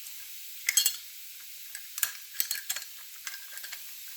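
Small metal clicks and rattles of Beretta A300 Outlander shotgun parts being handled and fitted together during reassembly, in irregular clusters, the loudest just before a second in, over a steady high hiss.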